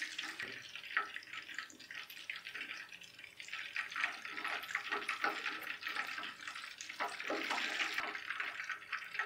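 Deep-frying oil sizzling around minced-meat-coated chicken drumsticks: a steady fizzing with many small crackles.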